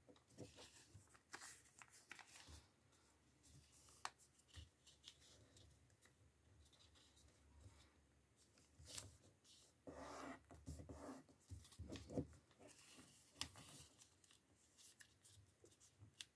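Faint rustling and crinkling of origami paper as it is folded and creased by hand, with scattered soft ticks of the paper edges and a longer rustle about ten seconds in.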